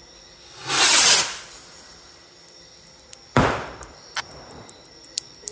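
A firework goes up with a brief whooshing hiss, bursts with one sharp bang about two seconds later, and its stars then crackle with scattered sharp pops.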